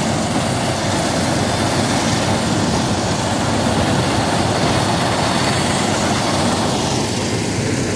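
Gatra GCH 858 combine harvester running steadily while harvesting rice, a continuous even engine and machinery noise.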